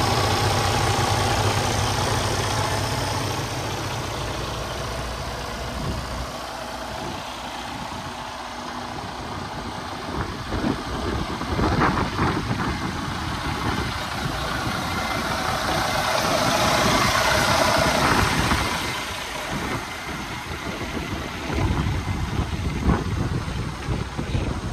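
Heavy-truck diesel engine of a Freightliner 122SD semi tractor idling, loudest and steadiest for the first several seconds, then a fainter, rougher rumble for the rest.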